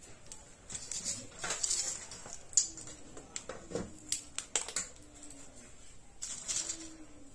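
Coarse dishwasher salt crunching and rustling as a hand digs into the tub and scoops it into a ceramic mug, in a string of short, irregular gritty scrapes and clicks.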